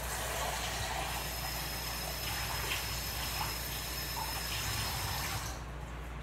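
Kitchen tap running into the sink, with a few light clinks, turned off about five and a half seconds in.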